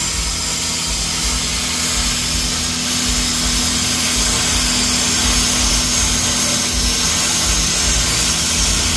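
Cutting torch hissing steadily as it cuts a factory suspension bracket off a Jeep Wrangler JL's steel frame, throwing sparks.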